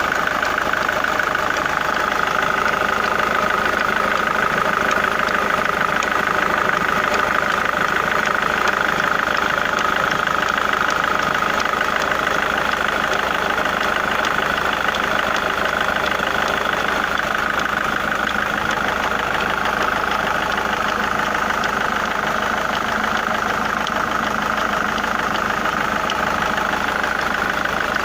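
Engine idling steadily with a fast, even knocking running through it.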